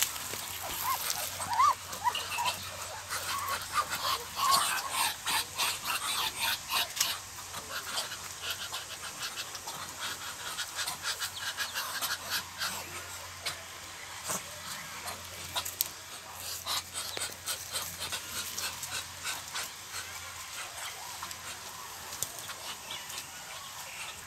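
Muscovy ducks calling: a run of short, breathy huffing calls in quick succession, with a few brief rising chirps about a second in, thinning out in the second half.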